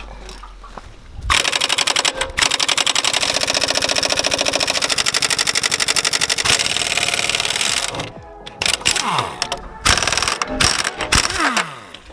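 Air impact wrench hammering on a nut under a truck: one long burst of rapid even strikes, then several shorter bursts in which the motor's pitch rises and falls.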